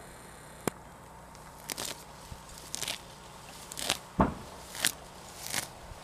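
Footsteps crunching through dry straw and hay, about one step a second, with a sharp click near the start and a heavier thump about four seconds in.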